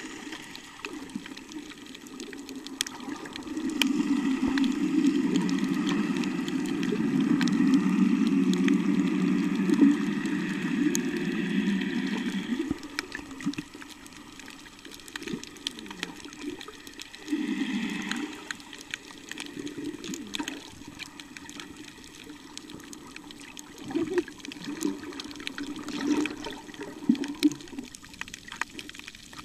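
Muffled water sounds heard underwater: sloshing and gurgling, with a steady low rumble from about four to twelve seconds in and a few short gurgling swells later on.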